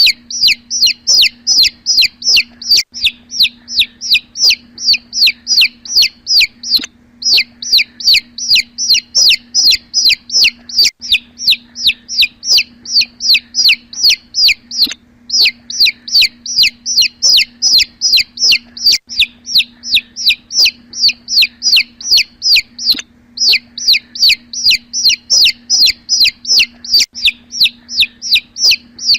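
Domestic chicken chick peeping: a steady run of high, falling peeps, about three a second, broken by short pauses every few seconds.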